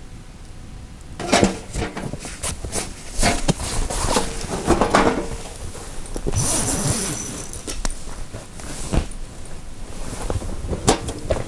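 A bag and camping gear being handled: cloth rustling with scattered knocks and clicks, starting about a second in.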